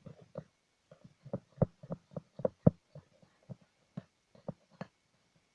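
Slime being squeezed and poked by hand: a quick, irregular run of short, wet squelching pops, loudest in the middle.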